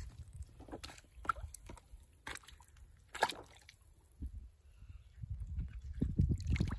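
Water sloshing and dripping as a hand gropes for fish inside a bamboo fish trap pressed into shallow water, with scattered small splashes and a sharper one about three seconds in. The sloshing grows busier near the end as the trap is moved.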